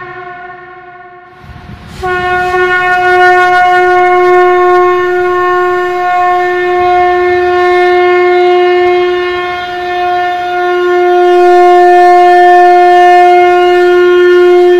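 Conch shell (shankh) being blown. The previous blast fades out, then about two seconds in a new long blast starts sharply and is held at one steady pitch, dipping slightly in loudness midway and swelling again near the end.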